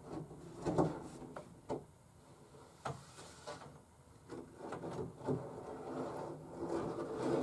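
Household handling sounds: a run of light knocks, clicks and rustles as someone moves things at a dresser and about the room, the loudest knock just under a second in.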